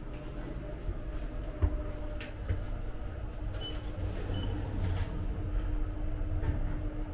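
Elevator car running: a low rumble with a steady hum, a thump about a second and a half in, and two short high beeps less than a second apart near the middle.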